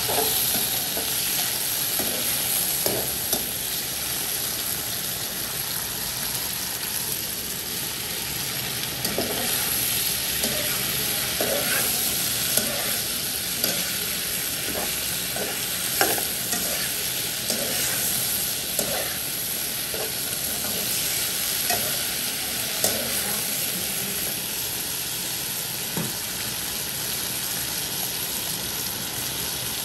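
Sliced sea snail and red bell pepper sizzling in oil in a wok while being stir-fried, with a spatula scraping and knocking against the pan every second or few.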